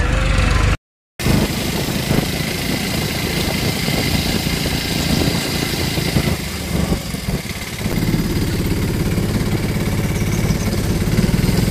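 Auto-rickshaw's small engine running steadily as it drives along, heard from inside the open cab, with a brief dropout about a second in.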